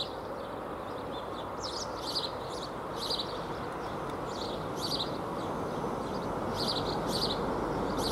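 Birds chirping in short calls about once a second over a steady outdoor rumble that grows slightly louder toward the end.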